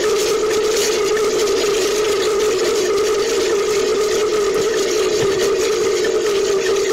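Beijing opera stage accompaniment held as a steady, unbroken din: a sustained ringing tone with a dense wash of higher noise above it and no clear beat.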